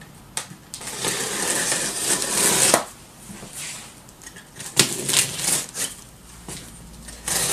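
A large cardboard shipping box being cut open with a utility knife: a long scraping rasp as the blade runs along the packing tape, then a few clicks and rustles of cardboard.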